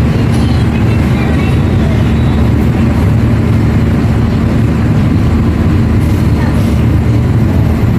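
CC204 diesel-electric locomotive engine running steadily: a loud, even, low rumble that holds the same pitch throughout.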